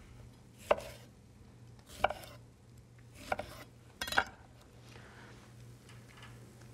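A knife cutting limes into wedges on a wooden chopping board: a handful of separate, sharp knocks of the blade on the board, roughly a second apart, with a quick double knock about four seconds in.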